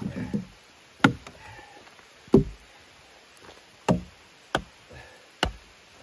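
Hudson Bay axe chopping into wood, about five sharp strikes at uneven intervals.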